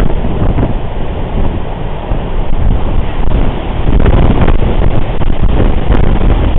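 Strong storm wind rushing and buffeting the microphone, a dense low noise that swells again about four seconds in.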